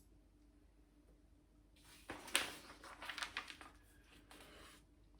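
Small plastic Lego pieces clattering and clicking as they are handled and sorted, a short run of quick clicks and rattles starting about two seconds in and lasting a couple of seconds.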